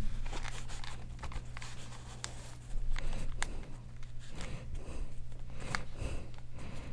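Soft handling noise of over-ear headphones being pulled on and adjusted, with rustling and a few light clicks, over a steady low hum.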